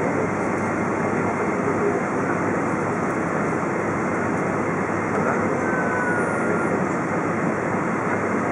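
Steady cabin noise inside a Boeing 777-200 taxiing, its jet engines running at low taxi thrust under an even hiss.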